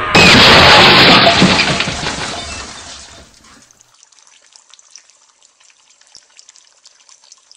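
Car crash sound effect: a loud smash with shattering glass that dies away over about three seconds, leaving only faint scattered crackling ticks of settling debris.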